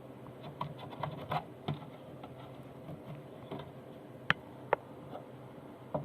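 Light scratching and small clicks from hands working on a partly disassembled sewing machine, with two sharp clicks a little past the middle.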